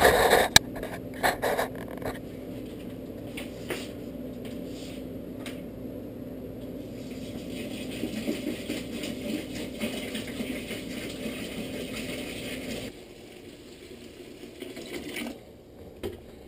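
Water pouring from plastic gallon jugs into a stainless-steel stock pot of grain: the mash water being added. A few knocks from the jugs being handled come in the first two seconds, then a steady pour, which turns quieter near the end.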